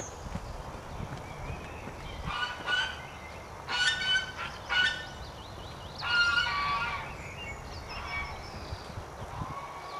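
Birds honking: a run of loud honks in the middle, the last one drawn out. Underneath, a horse's hoofbeats thud on soft sand.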